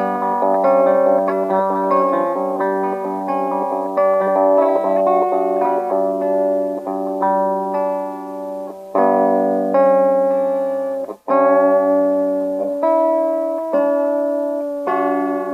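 Guitar playing melodic lines in the Lydian mode, tuned down about a whole step, over a held low note. Quick runs of notes give way about halfway to longer sustained notes, with a brief break a little after eleven seconds in.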